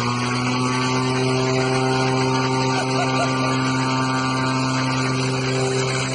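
Small propeller plane's engine running at high power: a steady, even drone with the rush of propeller blast over it.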